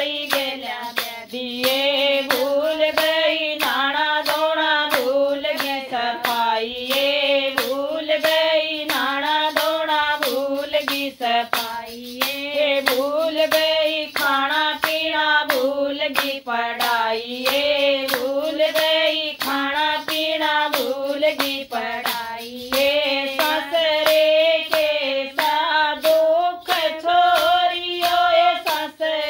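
A woman singing a Haryanvi folk song, with steady hand claps keeping the beat.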